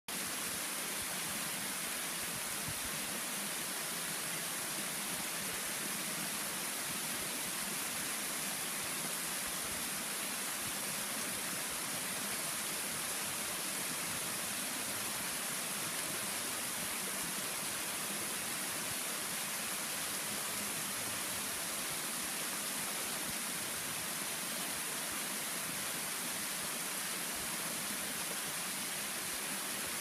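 A waterfall: thin strands of water cascading down a steep rock face and splashing onto rocks, making a steady, even rush.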